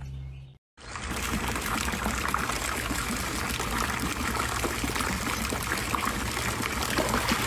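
Running water trickling and pouring steadily, starting after a brief silence less than a second in.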